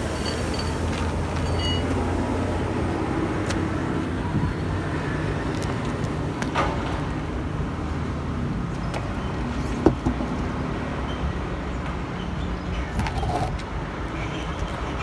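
A vehicle engine running steadily with a low hum, with a few sharp knocks over it, the loudest about ten seconds in.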